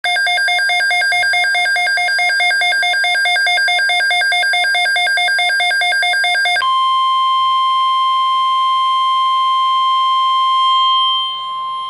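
An electronic alert tone warbling rapidly for about six and a half seconds, then switching abruptly to one steady, unwavering tone: the NOAA Weather Radio warning alarm tone that heralds an emergency weather alert.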